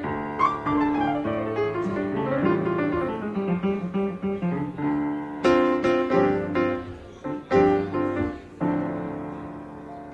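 Blues piano playing: runs of notes, then loud struck chords about five and a half and seven and a half seconds in, each left ringing and dying away.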